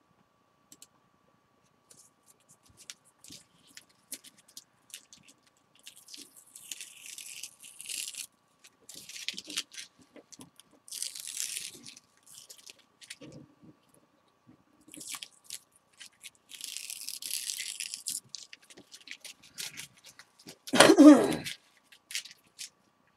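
Tape being peeled off the edges of a watercolor painting on paper: several tearing rips of a second or two each, with small crackles and rustles between. One louder sound about a second long comes near the end.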